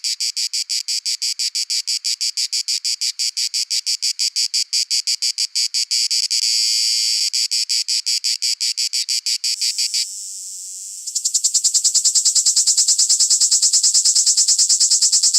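Cicada song, a loud, high rasping buzz pulsing about five or six times a second, which stops about ten seconds in. After a brief faint lull, a louder, faster-pulsing cicada buzz starts.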